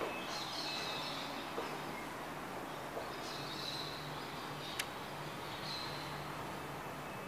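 Steady background ambience with a few faint, short high chirps and one sharp click a little past the middle.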